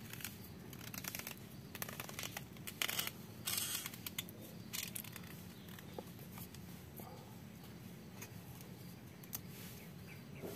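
Knife scraping and slicing the fibrous husk of a coconut bonsai: a run of short scraping strokes through the first half, then only faint, scattered scrapes.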